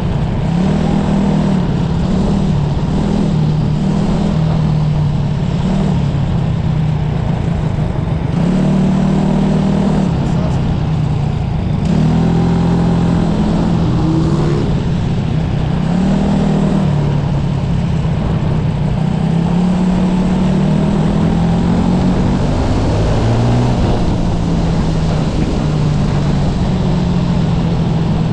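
SA250 racing kart's engine heard from the driver's seat, revving up and dropping back over and over as it accelerates and lifts off through the laps, its pitch rising and falling every few seconds.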